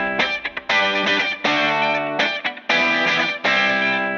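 Background music: distorted electric guitar playing sustained chords in blocks of about a second, with short choppy stabs between them.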